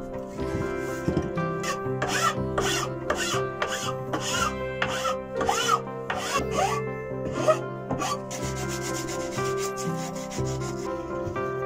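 A flat hand file rasping back and forth across the end of an oak slat, about two strokes a second. Near the end it gives way to a quieter rubbing of sandpaper on the wood. Soft background music plays underneath.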